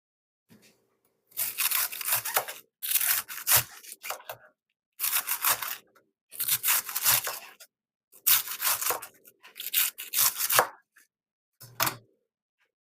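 About seven bursts of rustling, tearing noise, each up to about a second long, with short quiet gaps between them, from food or packaging being handled and pulled apart.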